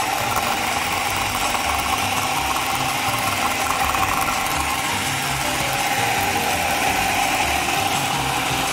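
Electric food processor motor running steadily at speed, blending labneh, feta, lemon juice and water into a smooth dip, with a steady hum.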